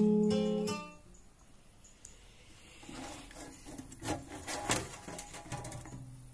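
Guitar music stops about a second in. Then the sheet-metal top cover of an Onkyo C-100 CD player is handled and lifted, giving a few sharp metallic clicks and some scraping.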